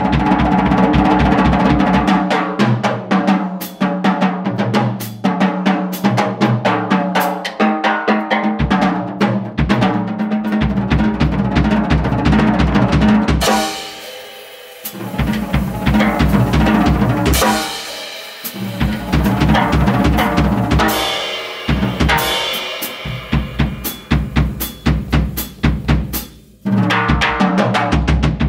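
Jazz drum kit played solo in a free, busy style: fast strokes on snare, toms and bass drum under ringing cymbals. About halfway through the drums thin out to cymbal ringing for a second or so, then build back up, and there is a brief stop near the end.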